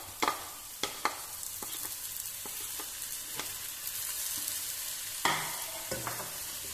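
Chopped pineapple and sugar sizzling steadily in a hot nonstick pot, with a few sharp taps of a spatula against the plate and pot in the first second and a louder knock about five seconds in.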